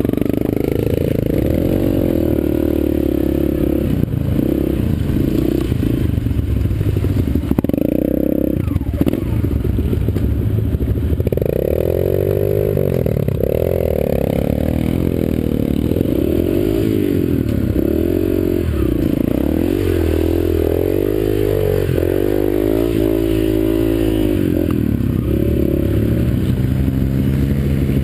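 Yamaha TT-R125 dirt bike's small single-cylinder four-stroke engine revving up and down again and again, heard close up from the rider's helmet, as it rides a muddy trail.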